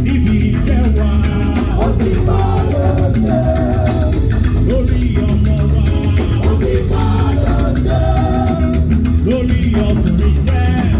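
Loud music with a steady, busy percussion beat and a strong bass line, under a repeating melody.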